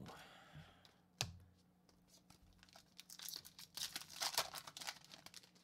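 A foil hockey card pack wrapper being torn open and crinkled by hand, the crackling heaviest in the second half. A single sharp click about a second in.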